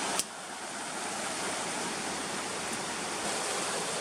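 River water flowing steadily, a constant rushing noise, with a single sharp click near the start.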